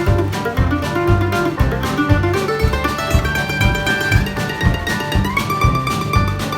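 A band playing a song: plucked guitar over a steady beat.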